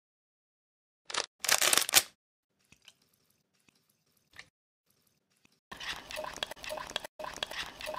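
A plastic sauce sachet crinkles and tears sharply about a second in, then a few faint ticks as the sauce is poured. Near the end a metal spoon stirs the thick spice-and-sauce marinade in a bowl: wet scraping with small clinks.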